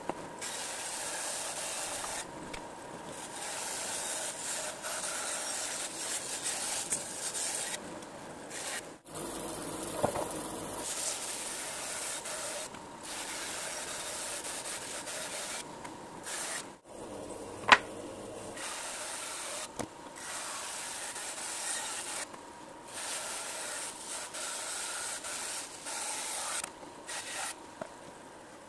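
Band saw cutting a thick teak slab along a curve: a steady hiss of the blade through the wood over the machine's hum, easing off and coming back several times as the slab is turned. One sharp click about eighteen seconds in.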